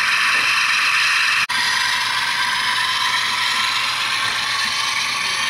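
HO scale model diesel locomotives running along the layout track, a steady whir of small motors and gearing. The sound drops out for an instant about a second and a half in.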